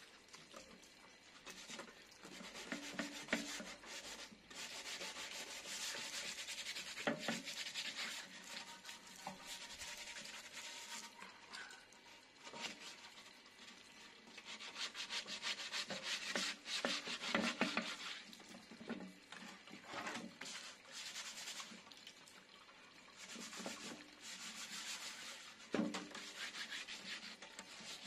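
Sandpaper rubbed by hand over the outside of a wet metal pot: quick back-and-forth scratching strokes in runs of a few seconds, with short pauses between them.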